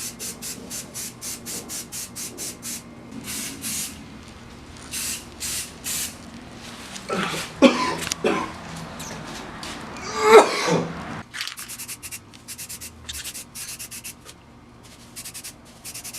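Rust-Oleum Professional aerosol spray primer hissing from the can in many short puffs, often in quick runs of about four a second, with a few longer sprays. A couple of louder, sharper sounds come about halfway through.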